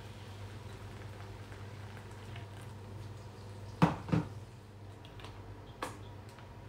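Faint water trickle from an electric kettle pouring through a plastic funnel into a spray bottle, then two sharp knocks about four seconds in as the kettle is set down on the wooden worktop. A lighter click follows near the end as the plastic spray head is handled.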